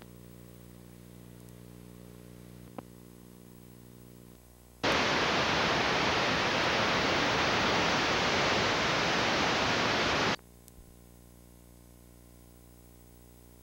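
Faint steady electrical hum, then about five seconds in a loud burst of even static hiss that lasts about five and a half seconds and cuts off suddenly, leaving the hum again.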